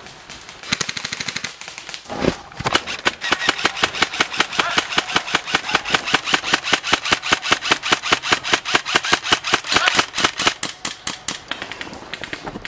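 Airsoft rifle firing on full auto: a short burst about a second in, then one long stream of rapid, evenly spaced shots that stops near the end.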